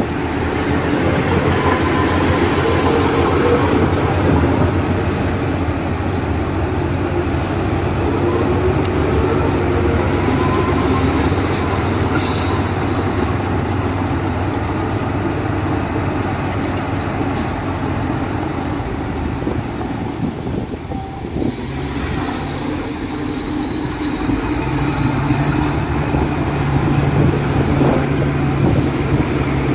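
Heavy diesel machinery running steadily under load, with a short, sharp hiss about twelve seconds in. Near the end the engine note steps up to a higher, steady pitch.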